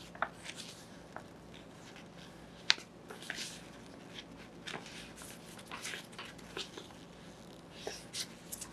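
A folded paper instruction leaflet being opened out by gloved hands: paper rustling and crinkling, with scattered sharp crackles, the loudest about a quarter second in and again near three seconds in.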